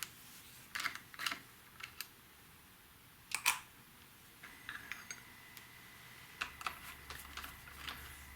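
Scattered metallic clicks and clinks of hand tools and hardware as bolts on a motorcycle's handlebar mounting are loosened, coming closer together near the end. A faint steady high whine runs through the second half.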